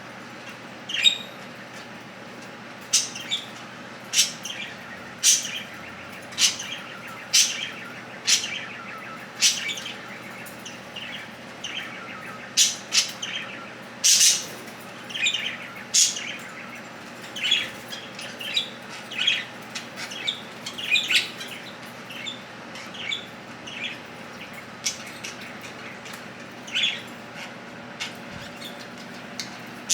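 Budgerigars chirping in short, sharp calls, roughly one a second, over a faint steady hum.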